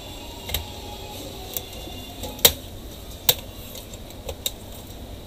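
Sharp plastic clicks and snaps as the clipped-together plastic case of an HP laptop is pried apart by hand: about six separate clicks, the loudest about halfway through.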